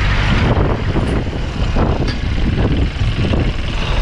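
SUV driving over desert sand: a loud, uneven engine rumble mixed with a rushing noise that surges and dips.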